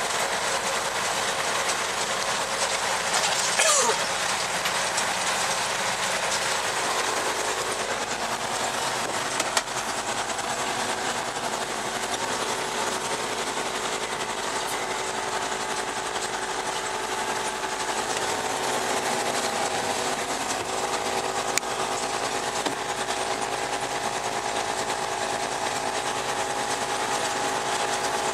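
John Deere 6200 tractor's diesel engine running steadily under load while baling, heard from inside the cab, with a constant rough mechanical clatter. A brief falling whine about three seconds in, and a couple of sharp clicks.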